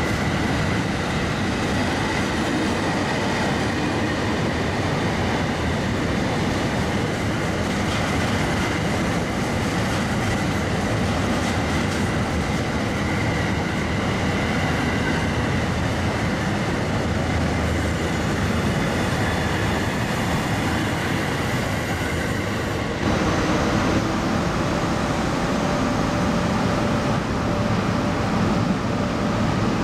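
A freight train of container wagons rolling past at speed: a steady rumble of wheels on rail with a faint high wheel squeal. About 23 s in it cuts to a different scene, an approaching freight train hauled by an E652 electric locomotive, with a heavier rumble and a steady hum near the end.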